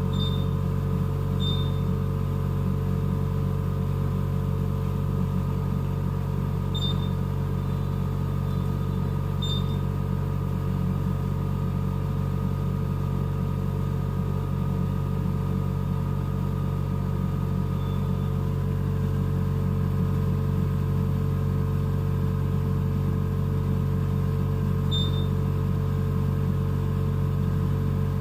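NICU ventilator running with a steady mechanical hum, unchanging throughout. A few short, high electronic beeps sound over it: twice near the start, twice around a third of the way in, and once near the end.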